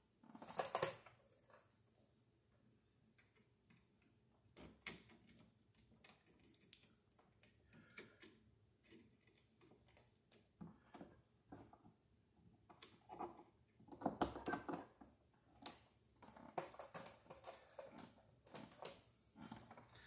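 Faint, irregular clicks, taps and scrapes of hand-wiring a wall switch: the switch body, wires and a screwdriver working its terminal screws, with a few louder knocks near the start and about two-thirds of the way in.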